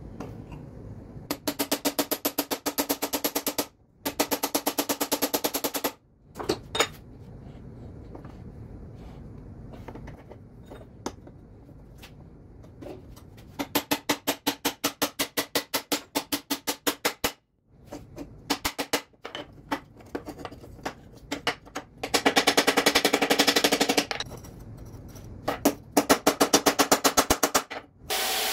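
Bursts of rapid metal-on-metal tapping, about eight strikes a second, with a ringing tone. Five runs of a few seconds each are separated by pauses.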